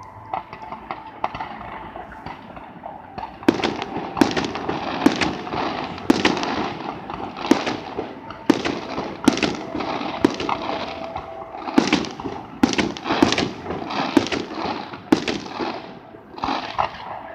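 Fireworks display: light crackling and small pops, then from about three and a half seconds in a rapid string of about twenty sharp bangs from bursting aerial shells, one or two a second, with crackling between them.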